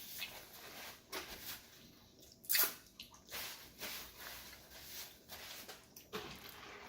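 Wet mouth sounds of chewing a McDonald's Daily Double burger: irregular smacks and squishes, one louder smack about two and a half seconds in.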